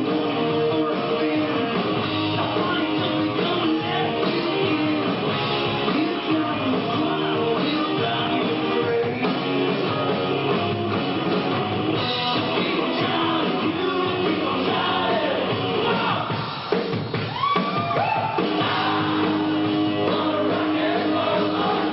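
A rock band playing live, with electric guitars, bass and drum kit and a singing voice. The band dips briefly about three quarters of the way through, with sliding guitar notes, before coming back in full.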